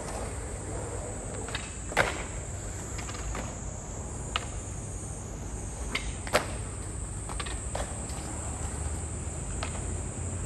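Skateboards knocking and clacking on concrete during a skate session: a string of sharp knocks, the loudest about two seconds in and again about six seconds in, with lighter ones in between. A steady high-pitched chirring runs underneath.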